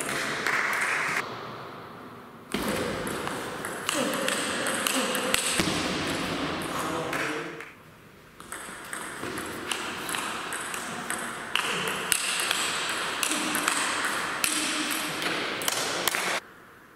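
Table tennis rally: the ball clicking sharply off the paddles and the table in quick succession. The sound drops away suddenly near the end.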